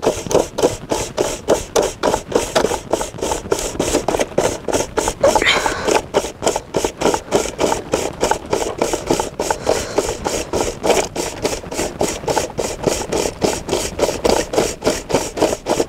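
A steel bowl being spun back and forth by hand inside a larger steel basin packed with ice, the ice grating and scraping against the metal in a steady rhythm of about three or four strokes a second: hand-churning ice cream in an ice bath.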